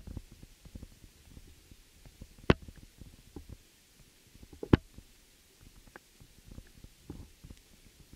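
Muffled underwater sound picked up through a submerged camera's waterproof housing: irregular low rumbling and soft knocks, with three sharp clicks, one at the start, one about two and a half seconds in and one near five seconds.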